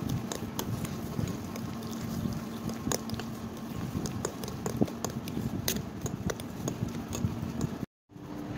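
A metal utensil clicking and scraping against a bowl while mashing banana with sugar: irregular light clicks, several a second, over a steady background hum. The sound cuts out briefly near the end.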